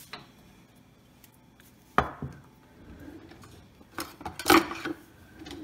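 Cookware and utensils being handled on a kitchen counter: one sharp knock about two seconds in, then a cluster of clattering knocks between four and five seconds in.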